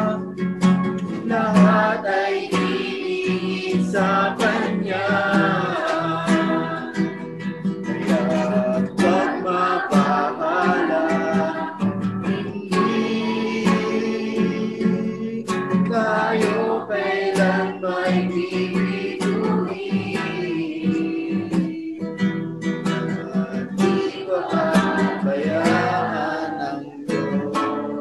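A Tagalog worship song: a voice singing over strummed acoustic guitar.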